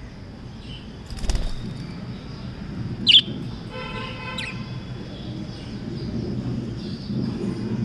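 Pet budgerigars chirping: a sharp, short chirp about three seconds in, then a buzzy chattering call with another brief chirp. A knock comes about a second in, and a low background noise runs throughout.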